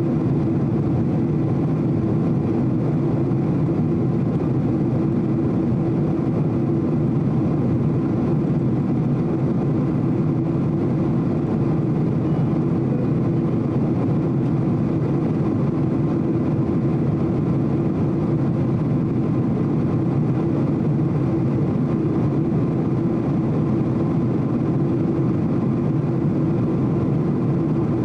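Steady cabin noise inside a Boeing 767-300 jetliner in flight: an even, unchanging rumble of jet engines and airflow, heaviest in the low range.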